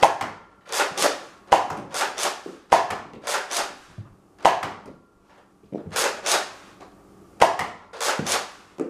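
Nerf Rival Hades, a spring-powered pump-action foam-ball blaster, being primed and fired shot after shot: groups of sharp plastic clacks about every second, with a short pause about halfway through.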